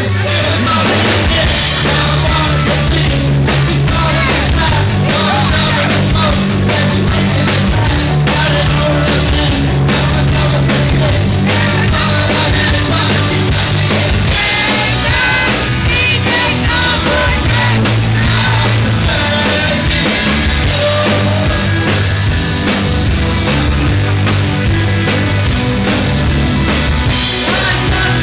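Live rock band playing loud, with drums, guitar and keyboards, and a man singing lead over them. The singer is an amateur fronting the band karaoke-style.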